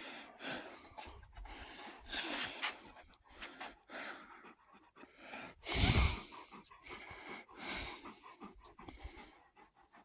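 Great Pyrenees dogs panting heavily after play, in a run of rough breaths about one a second, with one louder burst about six seconds in.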